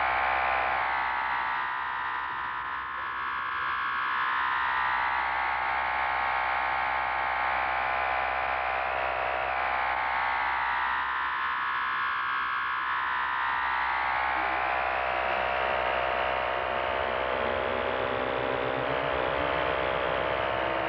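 Electronic drone soundtrack: a dense buzzing tone whose band of pitch sweeps slowly up and down about every five seconds, over a steady low hum. Near the end a lower tone glides slowly upward.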